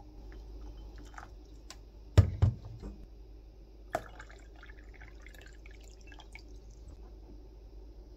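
Water poured into a ceramic mug, first from a gooseneck kettle and then cold water from a pitcher, with trickling and splashing. Two dull knocks about two seconds in and a sharp clink about four seconds in are the loudest sounds.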